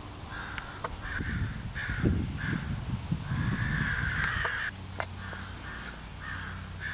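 Crows cawing in a run of short harsh calls, about two a second, with one long drawn-out caw in the middle: alarm calls of crows mobbing an owl. A low rumble rises under the calls in the middle.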